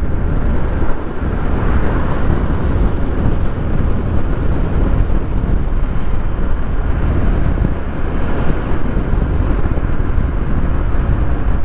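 Wind rushing over the microphone of a moving motorcycle, with the bike's engine and road noise underneath as a steady low rumble.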